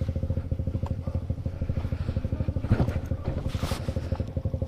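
Yamaha RX-King's single-cylinder two-stroke motorcycle engine idling with a steady, even putter. A brief hiss comes about three and a half seconds in.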